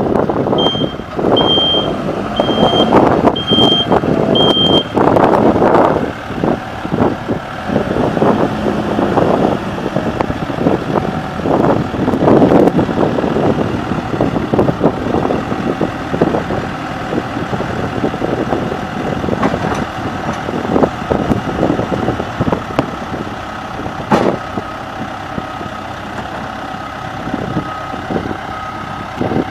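Case 580M Series 3 backhoe's four-cylinder diesel engine running with its load and speed rising and falling. A reversing alarm beeps about five times near the start, and there is one sharp clank late on.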